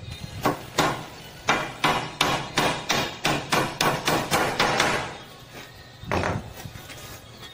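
Claw hammer driving small nails through a thin wooden slat into a wooden door frame jamb: a couple of single blows, then a fast run of about a dozen quick strikes, then one more blow near the end.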